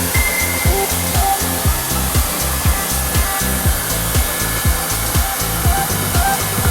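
Hair dryer blowing steadily under background music with a steady beat.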